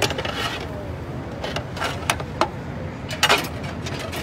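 Metal skewers and a knife clinking and scraping as grilled mutton chunks are pushed off the skewers into a metal pot, in a run of sharp clicks. The loudest scrape and clatter comes a little past three seconds in.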